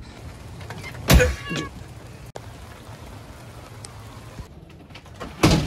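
A glass door is opened with a loud scraping squeak about a second in and shut with another loud rattling bang near the end, with a steady hiss of rain between.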